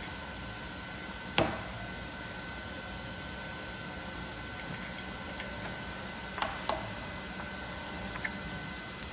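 A few sharp metallic clicks and knocks from tools and parts being handled during dismantling: one loud click about a second and a half in, two more close together later, and a faint one near the end, over a steady workshop hum with faint high steady tones.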